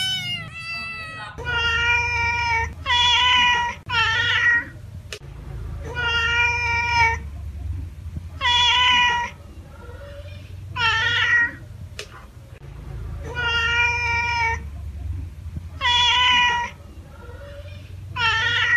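Tabby cat meowing repeatedly: loud, drawn-out meows about every two seconds, with a quick run of three close together near the start.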